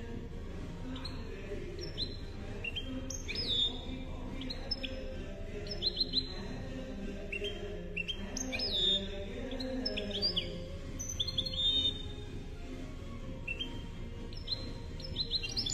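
Goldfinch × canary hybrid (mule) singing: a string of sharp chirps and quick rising and falling notes, breaking into a fast, loud trill near the end.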